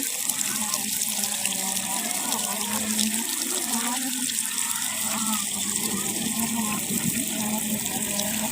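Clear water flowing steadily, a continuous rushing hiss with shifting lower bubbling texture.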